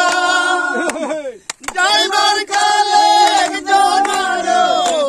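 A group of men singing a Bengali folk song together without instruments, holding long notes. The singing breaks off briefly about a second and a half in, then starts again, with hand claps.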